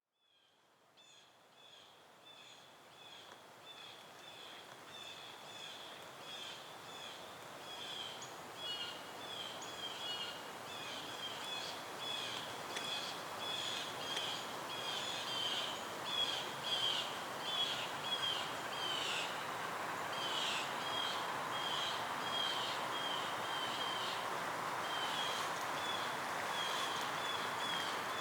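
A bird calling in a long run of short, high, repeated chirps, a few a second, over a steady rushing background noise; the whole grows gradually louder from silence over the first ten seconds or so.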